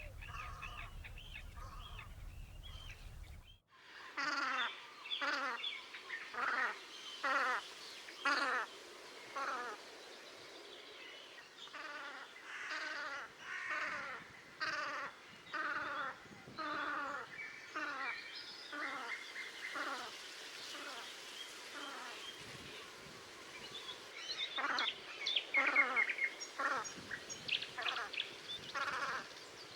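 Velvet scoters calling: a long series of short duck calls, roughly one a second, that grows busier and louder near the end. Before that, a low steady rumble with faint calls cuts off abruptly about three and a half seconds in.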